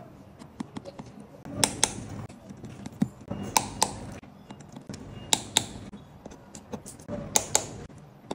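Small precision torque screwdriver tightening tiny phone screws: four pairs of sharp clicks about two seconds apart, the clutch slipping as each screw reaches its set torque.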